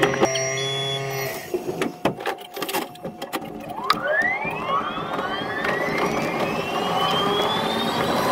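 Keihan electric train's traction motors whining up in pitch as it accelerates away from a stop, several rising tones together, sped up six-fold. Before that come a few sharp clicks and knocks.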